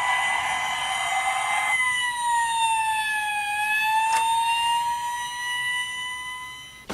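Toy fire truck's electronic siren sound effect: a single wailing tone that dips slowly in pitch midway and comes back up, with a click about four seconds in, then stops abruptly.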